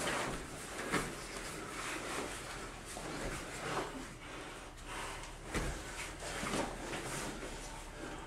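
Two grapplers' bodies and gis scuffing and bumping on a foam mat during a jiu-jitsu roll: irregular rustles and soft thuds, the loudest about a second in.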